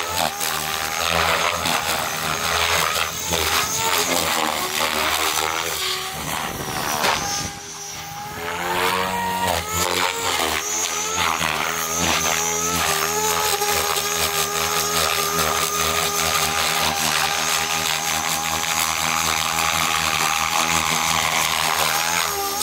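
Electric Tron 7.0 RC helicopter in flight: the Xnova brushless motor's whine and the main rotor blades' whooshing chop. The pitch rises and falls as the helicopter is thrown through aerobatic manoeuvres. The sound dips briefly about eight seconds in, then holds a steady pitch.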